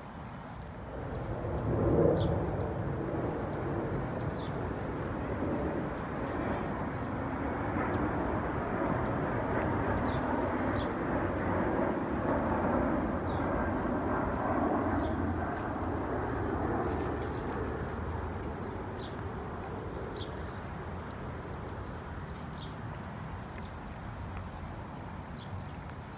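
Outdoor park ambience: a broad rushing noise swells about two seconds in, holds, then slowly fades, with scattered small bird chirps over it.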